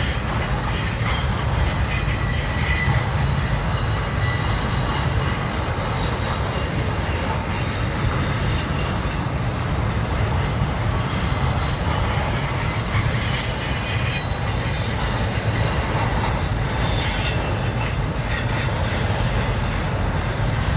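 Florida East Coast Railway freight cars rolling past in a steady, continuous low rumble of steel wheels on rail, with high-pitched wheel squeal coming and going.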